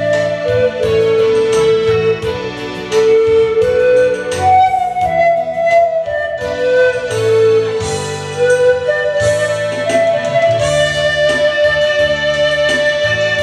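Bamboo pan flute playing a slow melody of long held notes, over a backing accompaniment of keyboard and bass chords.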